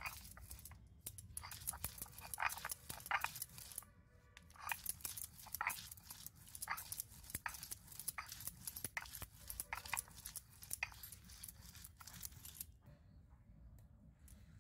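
Stone roller crushing chopped onions on a flat stone grinding slab (shil-nora), heard as a rapid run of crunching, scraping strokes that stops near the end.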